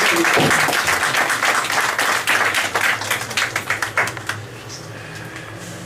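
Audience applauding, a dense patter of hand claps that thins out and dies down about four seconds in.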